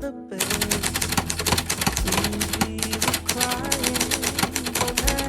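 Old manual typewriter being typed on quickly: a fast, uneven run of key strikes that starts just after a brief pause.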